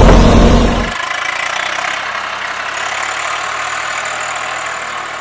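Diesel engines of a Swaraj 744 FE tractor and a JCB backhoe loader running. The sound is very loud for about the first second, then drops sharply to a steadier, quieter running.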